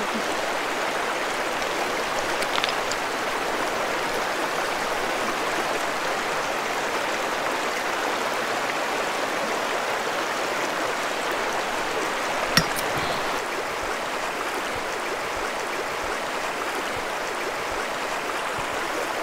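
Small mountain river rushing steadily over stones. A single sharp click comes about two-thirds of the way through.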